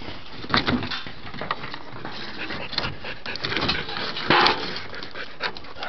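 A dog scrabbling and scraping at wooden furniture with short clicks and scrapes, trying to reach a toy stuck there. One louder scrape comes about four seconds in.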